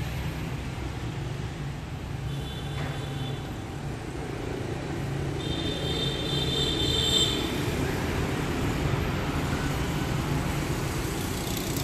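Steady low rumble of running engines and traffic, with faint high-pitched tones about two seconds in and again around six seconds in.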